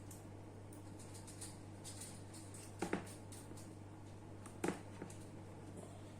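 Light handling clicks and taps over a steady low hum, with two sharp double clicks, the first about three seconds in and the second a couple of seconds later.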